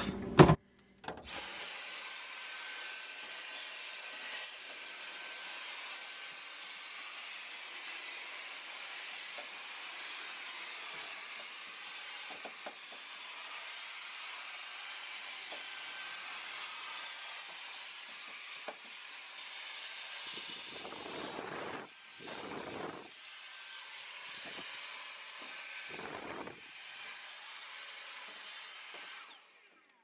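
Cordless handheld vacuum with a narrow crevice tool running steadily with a high motor whine as it sucks crumbs off the plastic floor of a fridge drawer. It switches on about a second in and off just before the end, and its tone changes briefly a few times in the last third.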